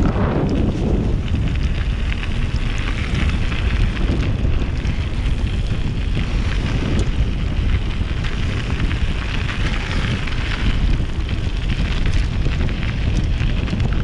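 Wind buffeting the microphone of a camera on a moving mountain bike, with the steady rush of the tyres rolling over the trail.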